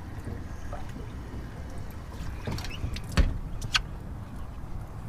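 Wind rumbling on the microphone in an open boat, with a few sharp clicks and knocks, the loudest a little past three seconds in.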